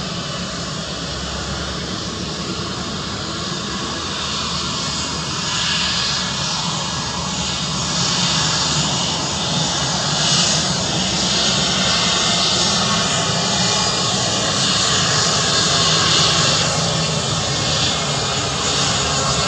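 Twin IAE V2500 jet engines of an Airbus A320-232 at takeoff thrust during the runway roll. The steady jet noise grows steadily louder as the airliner accelerates toward and past the listener.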